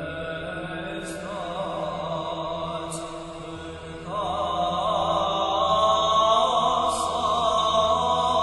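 Background music of slow sung chant, with sustained wavering voices that grow louder about four seconds in.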